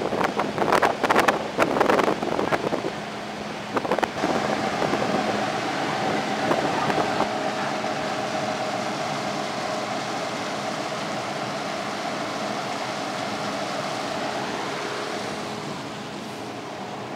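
Fire engine's engine running steadily, a constant hum with a few held tones over a wash of noise. It follows a scatter of knocks and bumps in the first few seconds.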